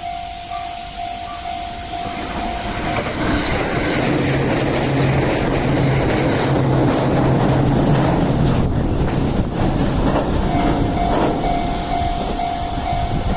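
Level-crossing warning bell ringing in a steady repeating pattern while a train passes over the crossing. The train's running noise swells from about three seconds in and drowns the bell until about ten seconds in, when the bell is heard again.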